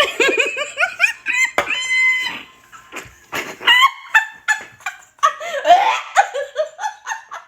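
Shrill cackling laughter from girls, in quick rising whoops, with one held high squeal about two seconds in.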